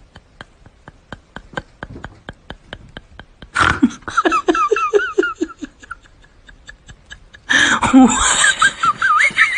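High-pitched laughter over a steady ticking beat of about four ticks a second. The laughter comes in about three and a half seconds in and again, louder, about two seconds before the end.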